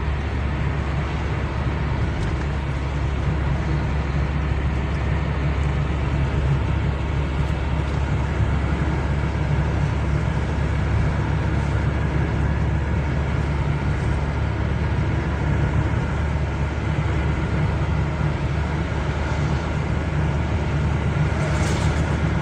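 Steady road and engine drone of a moving car, heard from inside the cabin.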